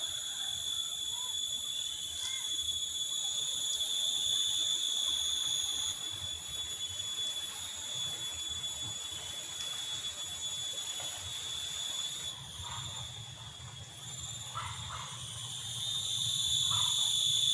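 Steady chorus of insects: several shrill high-pitched tones held together without pause, the mix shifting slightly about six and twelve seconds in.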